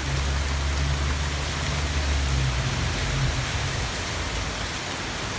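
Heavy rain pouring steadily, with a low rumble of strong wind for about the first three seconds that then dies down.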